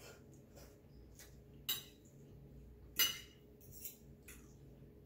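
Metal fork and spoon clinking and scraping against a ceramic plate while twirling fettuccine. There are two sharp clinks about a second and a half apart, the second the loudest, then a couple of lighter taps.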